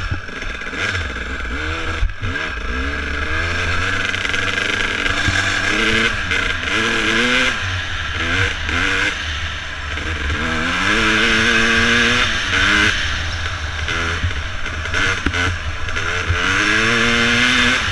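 Two-stroke dirt bike engine under way on a gravel trail, its pitch climbing and dropping again and again as it is revved up through the gears, over a steady rush of wind and the rattle of the ride.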